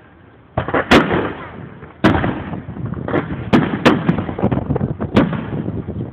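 Fireworks display: aerial shells bursting in an uneven run of sharp, loud bangs, starting about half a second in, each bang trailing off with noise between them.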